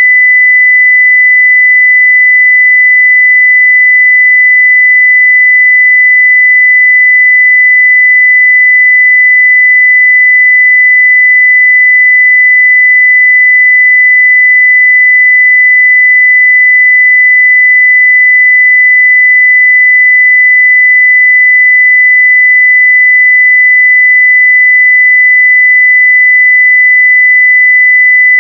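A steady 2 kHz sine-wave test tone at full level (0 dB), one pure unbroken pitch.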